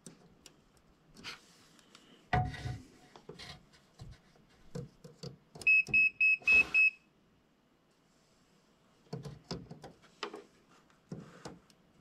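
A quick run of about five short, high-pitched electronic beeps about six seconds in. Around them are light clicks and taps as multimeter test probes are placed on the terminals of a microwave oven's relay board.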